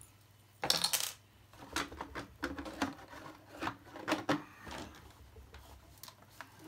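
Clicks and clatter of hard plastic and metal parts being handled on a table as pieces are taken off an RC crawler. A brief rustle comes about half a second in, then a run of sharp knocks that thins out towards the end.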